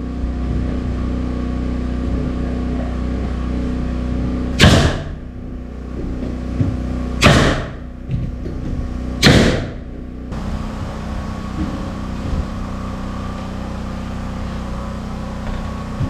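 Steady machine hum, broken three times by loud, brief whooshing hisses about two to two and a half seconds apart.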